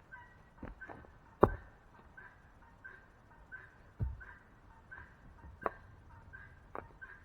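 Several sharp, irregular knocks, the loudest about a second and a half in, over a bird repeating a short whistled call about twice a second.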